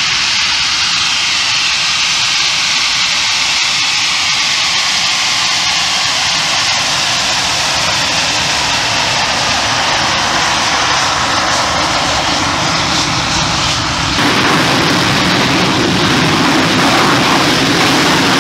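English Electric Lightning's twin Rolls-Royce Avon turbojets running at taxi power, a loud, steady jet whine and rush. About fourteen seconds in, the sound abruptly becomes deeper and louder.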